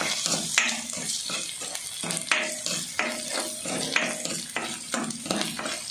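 Shallots and ginger sizzling in hot oil in an iron wok, stirred with a plastic spatula that scrapes and knocks against the pan over and over.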